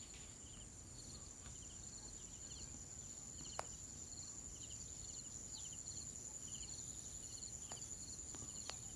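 Faint insect chorus: a steady high-pitched drone with short chirps repeating over it. A sharp click comes about three and a half seconds in, with a few fainter ones near the end.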